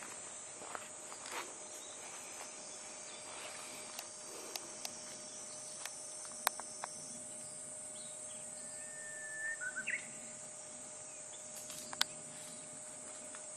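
Woodland ambience of steady high-pitched insect buzzing, broken by a few sharp isolated clicks or snaps, the loudest about six seconds in and again near the end. A short bird call sounds about two-thirds of the way through.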